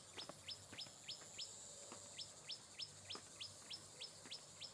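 Insect calling: a rapid train of short falling chirps, about four a second with a brief break about two seconds in, over a steady high hiss.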